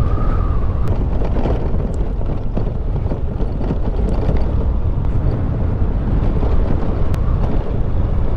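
Motorcycle riding along, its engine running steadily under heavy wind rush on the microphone. A thin whine fades out about a second in.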